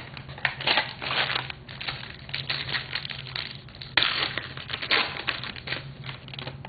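Foil wrapper of a trading-card pack crinkling and tearing as it is opened by hand: an irregular run of crackles, with a louder crackle about four seconds in.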